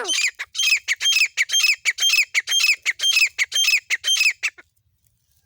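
Francolin (teetar) calling: a rapid series of sharp, evenly repeated notes, about four or five a second, that stops abruptly after about four and a half seconds.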